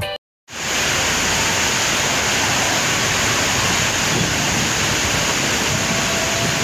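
Heavy rain falling on a busy city street, a steady even hiss mixed with passing motor traffic. It starts abruptly about half a second in.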